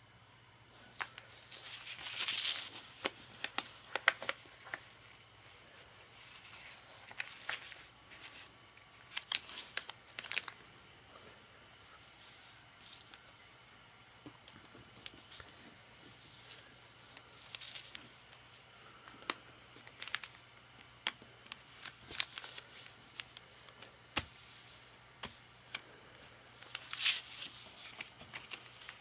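A sheet of paper being folded and creased by hand into a paper airplane: irregular rustling and crinkling with sharp little clicks as fingers press and run along the folds, in short spells with quieter pauses between.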